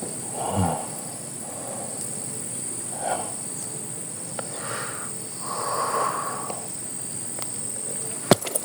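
Crickets chirring in a steady, high, even drone, with a few faint brief noises scattered through it.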